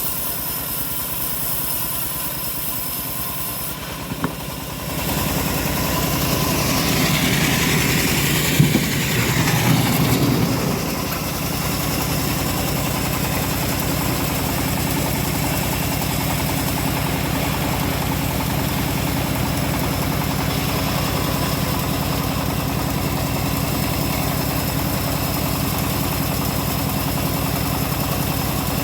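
A homemade bandsaw mill running steadily with a constant machine hum. It gets louder and rougher from about five seconds in, with a falling pitch around eight to ten seconds, then settles back to a steady run.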